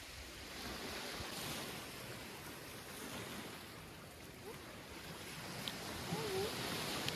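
Small waves washing onto a sandy beach, a steady hiss of surf that swells and eases, with some wind on the microphone.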